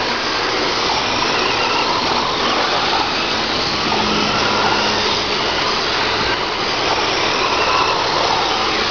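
Several radio-controlled racing trucks running laps on a dirt oval, their motors whining steadily, the pitch rising and falling as they accelerate and pass.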